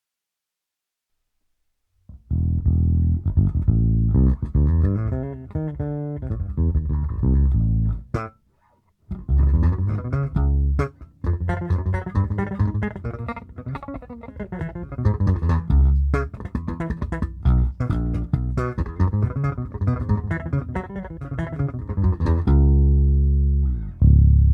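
Electric bass played through a Hartke TX600 head and a Fender Bassman Neo 1x15 cabinet with a tweeter, heard through a room microphone, with no compressor in the chain. A run of plucked notes starts about two seconds in, breaks off for a moment about eight seconds in, then carries on.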